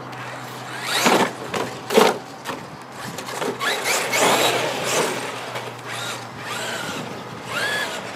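Traxxas X-Maxx electric RC monster truck driving on asphalt: its brushless motor whines, rising and falling in pitch with bursts of throttle, over tyre noise. Short surges come about one and two seconds in, then a longer run a few seconds in.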